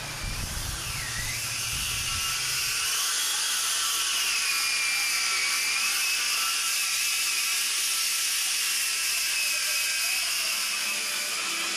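High-pitched power tool running steadily: a whine that dips about a second in and then wanders slowly in pitch, over a continuous hiss.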